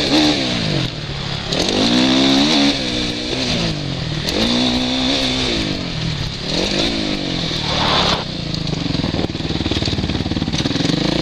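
Suzuki RM-Z450 450 cc single-cylinder four-stroke engine, heard from the rider's helmet, revving up hard and backing off again and again, about five times, as the bike is ridden around a motocross track. Near the end it runs more evenly at a lower pitch.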